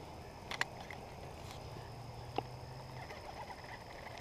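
A frog croaking with a low, drawn-out call, strongest around the middle, against a faint steady high tone. Two short sharp clicks cut in, one just over half a second in and one a little past two seconds.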